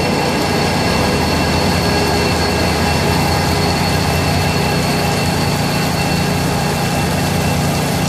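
Diesel locomotive idling steadily, a constant low hum with a few steady higher tones, over the even hiss of falling rain.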